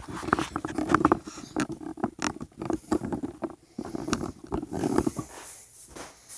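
A phone being handled and set into its mount, close to its microphone: irregular knocks, clicks and rubbing for about five seconds, then it goes much quieter.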